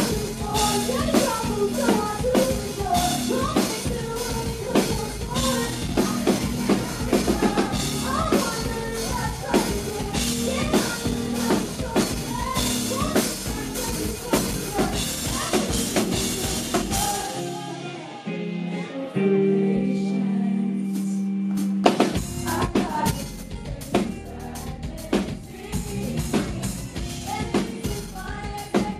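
Live rock band playing loud through a club PA, heard from the crowd: pounding drum kit, electric guitars and a woman singing into a microphone. A little past the middle the drums and low end drop out, leaving a held chord for a few seconds, then the full band crashes back in with the drums.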